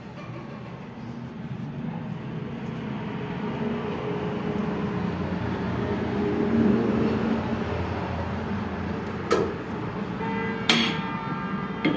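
A low engine rumble from a passing vehicle swells over several seconds and then eases. Near the end come two sharp metallic clinks with a brief ring, from steel hand tools knocking against the crankshaft and bearing caps.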